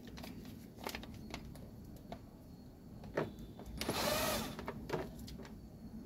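Electric screwdriver running briefly about four seconds in, its motor pitch rising and falling as it drives a screw back into a rice cooker's plastic casing. Scattered light clicks of handling come before it.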